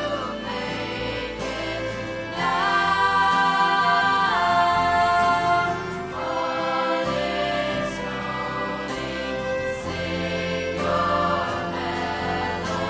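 A string ensemble of violins and cello playing a slow piece of music with a choir singing, the notes held for a couple of seconds each. It swells louder for a few seconds near the middle.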